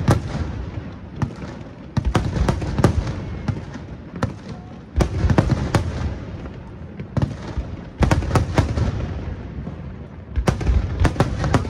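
Aerial firework shells bursting in quick volleys of sharp bangs, a new salvo about every three seconds, with a low rumble between them.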